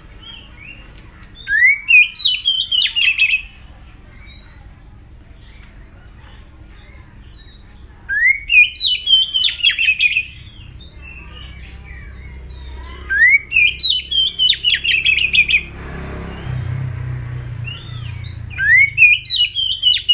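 Oriental magpie-robin calling in four loud bursts a few seconds apart. Each burst is a rising note followed by a quick run of harsh, repeated notes. A brief low rumbling noise comes in about three quarters of the way through.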